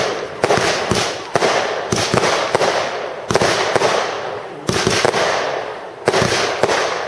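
A Magic Mirror fireworks compound cake firing: a string of loud bangs at irregular intervals, about one to two a second, each fading away over about a second.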